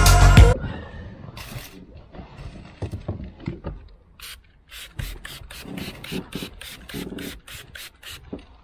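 Trigger spray bottle squirting water onto the inside of a car's rear side window to wet the glass for tint film: a quick run of short hissing sprays, about three a second, starting about halfway through. Music cuts off about half a second in.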